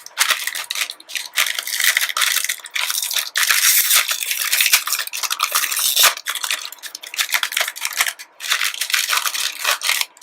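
Crinkly plastic bags of a plastic model kit being handled and opened, with the plastic runners inside clicking and rattling against each other.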